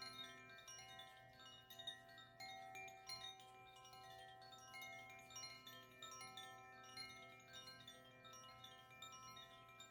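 Koshi chimes, bamboo wind chimes, ringing softly. Many overlapping notes are struck in quick, irregular succession, and each one rings on and fades.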